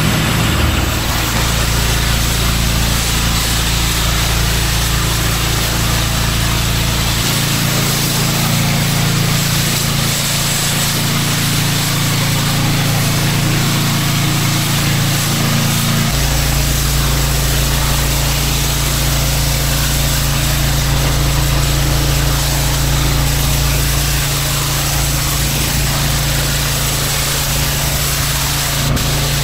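Pressure washer running with its water jet hissing against the driveway surface over a steady engine hum. The hum changes pitch abruptly three times.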